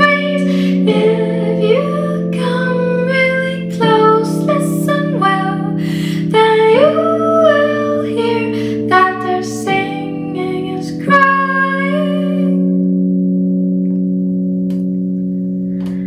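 Solo song: a woman sings over sustained chords that she plays on a Nord Electro 3 stage keyboard. About twelve seconds in the voice stops and a held chord slowly fades.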